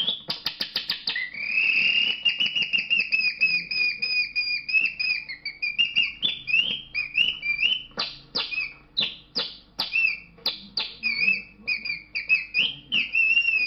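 Canary song imitated by a man blowing through a scrap of plastic bag held to his lips: a fast clicking trill, then a long high whistled note, then quick chirps and warbles.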